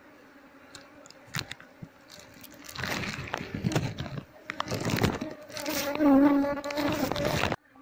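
Asian honeybees (Apis cerana) buzzing in a steady hum, at first faint with a few clicks. About three seconds in, loud rustling and handling noise joins the buzzing, and the sound cuts off suddenly near the end.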